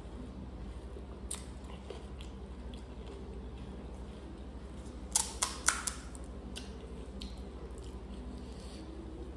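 A person chewing food close to the microphone, with scattered small crunches and a quick run of four or five louder crunches about five seconds in. A steady low hum runs underneath.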